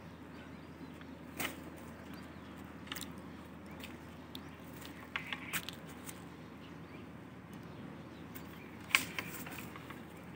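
Bamboo picking pole knocking and rustling among the leucaena tree's branches and pods: scattered sharp clicks and snaps over a quiet steady background, the loudest about nine seconds in.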